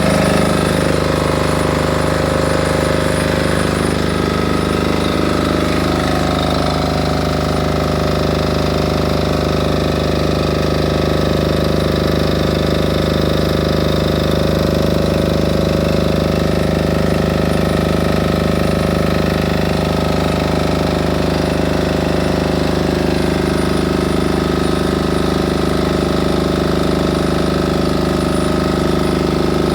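A 6.5 kVA silent (canopied) diesel generator running at a steady, constant speed, its engine note unchanging throughout.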